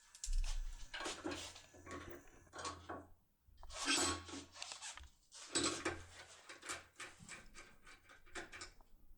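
A locksmith's pick tool being worked in a Dierre high-security cylinder lock: clusters of small sharp clicks and scraping strokes, coming in short groups with pauses between.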